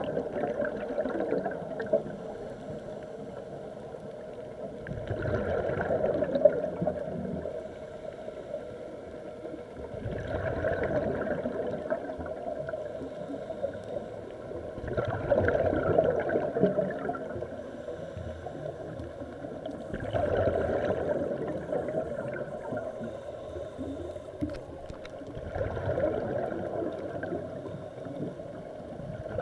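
Scuba diver's regulator breathing heard underwater: a gurgling rush of exhaled bubbles about every five seconds, each lasting a second or two, over a steady underwater hiss.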